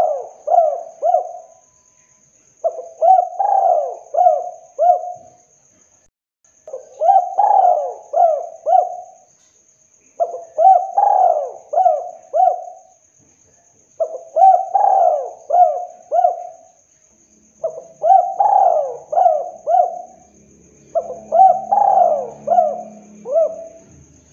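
Spotted dove cooing its 'kuk 2' song: phrases of four or five arched coos, repeated about every three and a half seconds, seven times.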